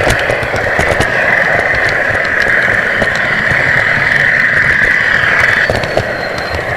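4mm-scale model train running along the track, heard close up from a camera riding on it: a steady whirr of motor and wheels with many sharp clicks.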